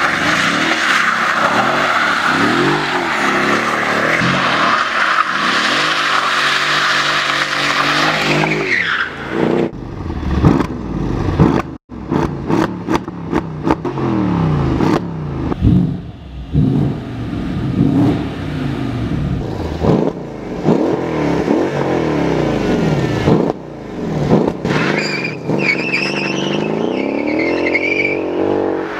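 Mercedes-Benz CLS 63 AMG's twin-turbo V8 held at high revs while the car drifts, with the tyres squealing for about the first nine seconds. Then the engine is blipped again and again from the quad exhaust, each rev rising and falling sharply. Near the end the car pulls away, its engine climbing steadily in pitch.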